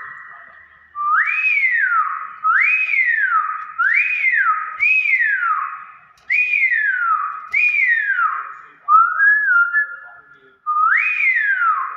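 Hill myna (beo) whistling: a run of about eight loud whistled notes, each swooping up quickly and then sliding slowly down, with one shorter, flatter note about nine seconds in.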